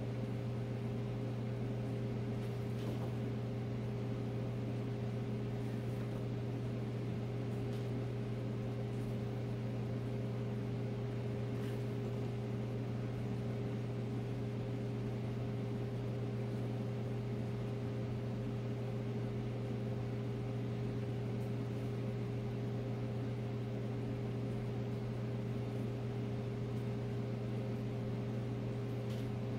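Steady electric hum of a running appliance motor or fan, with a few faint light taps as pepper pieces are set down on a silicone mesh dehydrator sheet.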